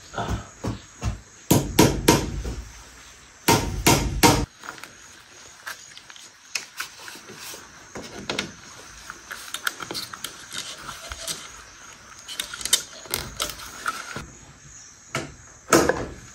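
Hammer driving nails into a wooden post, a run of sharp knocks in groups over the first four seconds or so, with two more knocks near the end. In between come lighter clicks and scraping as wire is twisted around a nail to hold a mosquito net.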